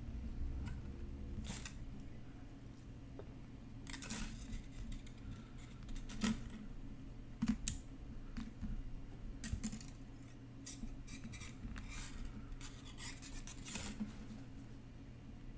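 Fine wire being pulled through and coiled around a wire-wrapped ring band, making faint irregular scrapes and small metallic ticks as it drags against the metal. A low steady hum runs underneath.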